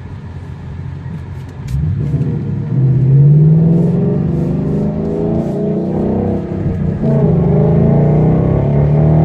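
2015 Mustang GT's 5.0 V8 heard from inside the cabin through an aftermarket exhaust, accelerating. The deep engine note rises in pitch and grows loud about two seconds in, then steps up again around seven seconds in.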